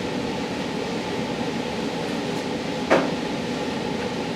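Steady hum of a blower fan, with one short sharp knock about three seconds in.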